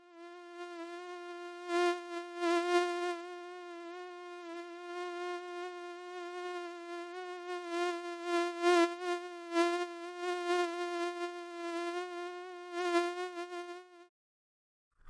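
Mosquito buzzing sound effect: a steady, high whining buzz that wavers slightly and swells louder now and then, cutting off abruptly near the end.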